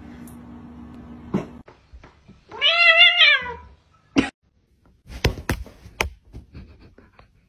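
A domestic cat gives one long meow, its pitch rising and then falling, about three seconds in. A few sharp knocks or thumps follow near the end.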